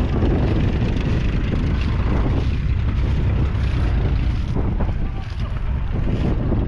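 1967 Muir-Hill 101's 5.9-litre six-cylinder diesel engine running steadily, with wind buffeting the microphone.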